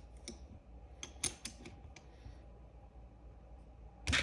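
Scattered sharp metal clicks and clinks of a wrench working a pair of nuts locked together on a corroded cylinder stud, with a louder clatter of metal right at the end.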